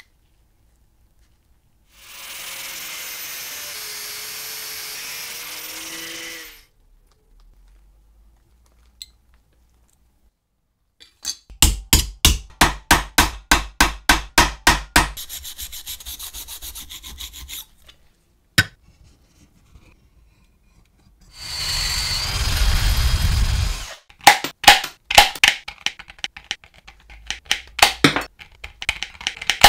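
Copper metalwork: a steady machine noise for about four seconds, then a rapid run of hammer blows flattening copper sheet on a steel vise's anvil, a second, louder spell of machine noise, and finally the irregular snipping clicks of tin snips cutting a disc from the copper sheet.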